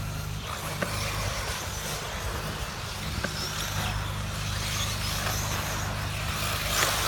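Electric 1/8-scale off-road RC buggies running on a dirt track: a steady noise of motors and tyres, with faint rising and falling whines, over a steady low hum.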